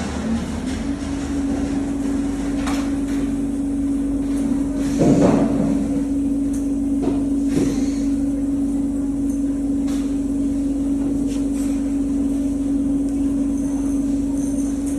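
Automatic CNC end mill grinder running: a steady machine hum that rises slightly and settles within the first second, with a few knocks and clicks from the machine, the loudest about five seconds in.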